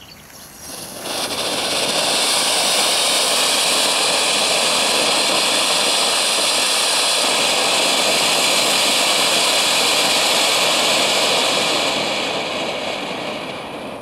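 A cone-shaped ground fountain firework (Fount Fury) hissing as it gushes a tall spray of sparks. It flares up about a second in, holds steady, and dies away over the last couple of seconds as it burns out.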